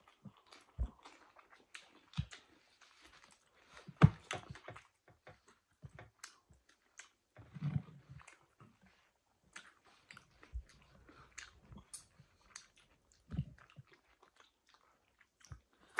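Chewing and mouth smacks of people eating with their hands, heard as scattered short clicks and smacks, the loudest about four seconds in.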